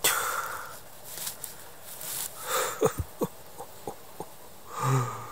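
Moss, roots and soil tearing and crackling as a thick-stemmed pine porcini (Boletus pinophilus) is pulled out of the forest floor, with a cluster of sharp snaps about three seconds in. A short hum of a man's voice comes near the end.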